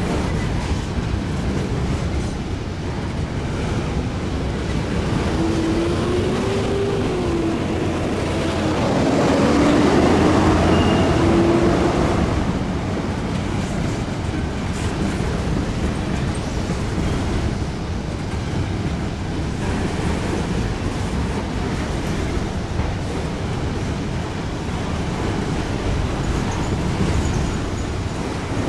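Autorack freight cars rolling past on the rails, a steady noise of steel wheels on track. A wavering tone rises and falls for several seconds around the middle, where the noise is loudest.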